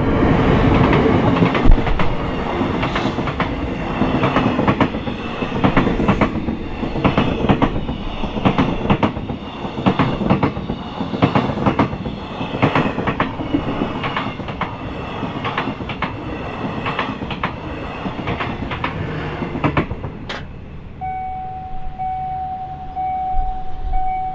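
A train passing close by, its wheels clicking over the rail joints in a steady rhythm for about twenty seconds. The noise then drops away, and a steady tone sounds near the end.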